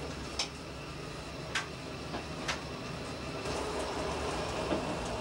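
The 1963 Fiat-built ADn 602 diesel railcar running along the line, heard inside the driver's cab: a steady running rumble that grows a little louder after about three seconds, with a few sharp clicks in the first half.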